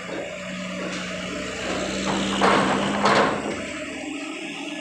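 Heavy diesel box truck driving slowly past close by over a steel ferry ramp, its engine running steadily. Two loud short bursts of noise come about half a second apart a little over halfway through.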